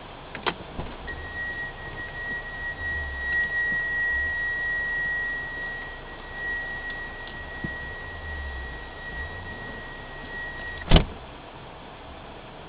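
A steady high-pitched electronic tone held for about ten seconds, cut off by a loud sharp knock, over a low rumble.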